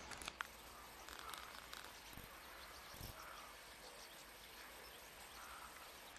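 Near silence: faint outdoor ambience, with a few light clicks about half a second in.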